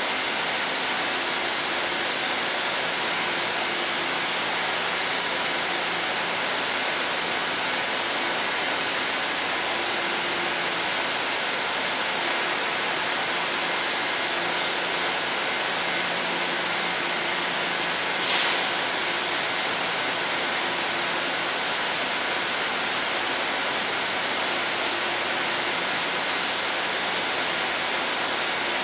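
Rokumon sightseeing train, a converted 115-series electric train, standing at the platform with its equipment running: a steady hiss with a faint low hum that comes and goes. A short, sharper hiss comes about eighteen seconds in.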